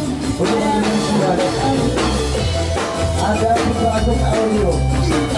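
Live band playing amplified music with a drum kit keeping a steady beat under a wavering melody line.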